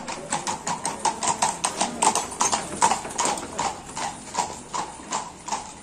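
Hooves of a pair of horses pulling a carriage, clip-clopping on brick paving in an even beat of about four or five clops a second.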